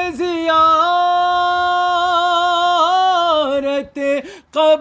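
A man sings a line of Urdu religious verse unaccompanied. He holds one long note with a slight waver for about three seconds, then turns through a few shorter notes and takes a quick breath near the end.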